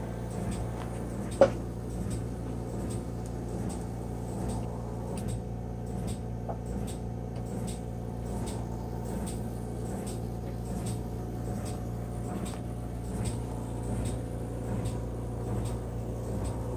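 Märklin Z scale steam locomotive's small three-pole motor running with a steady hum, with light regular ticks about twice a second; the motor runs smoothly after its brushes and armature were cleaned. A single sharp click about a second and a half in.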